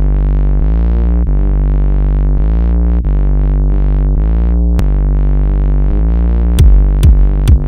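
Electronic music: held synthesizer chords over a steady bass, changing chord every second or so. A drum-machine beat comes in near the end.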